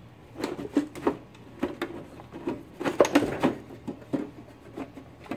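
Irregular knocks and rattles as hands tug and push at the loosened sheet-metal side cover of a Hypertherm Powermax 45 plasma cutter, the stuck panel not coming off easily.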